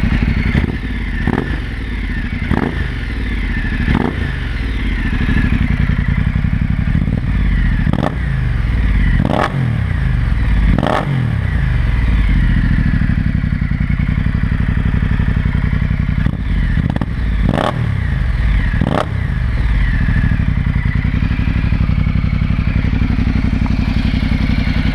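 Ducati Multistrada 1200 S V-twin with a Termignoni full race exhaust idling, with a mellow exhaust note, and revved in sharp throttle blips that each fall back to idle. There are three bursts of three quick blips, then it runs steadily at idle near the end.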